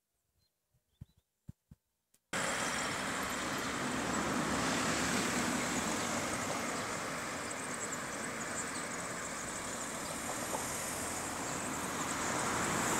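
A few faint clicks, then about two seconds in a sudden switch to steady road traffic noise, an even rush that holds to the end.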